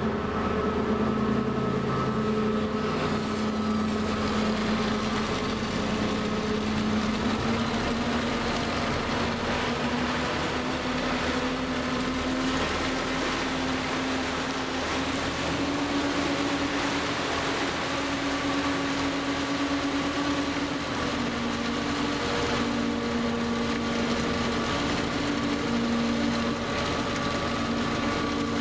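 Passenger boat's diesel engines running steadily under way, with water rushing along the hull and wind across the deck; the engine note rises a little a few seconds in and again about halfway through.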